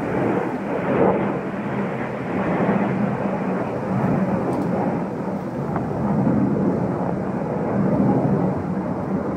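Distant jet roar of two F-16 fighter jets flying high overhead: a continuous rumble that rises and falls in strength.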